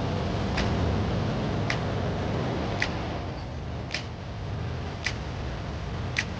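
Sharp ticks at an even pace, about one a second, over a steady low rumble.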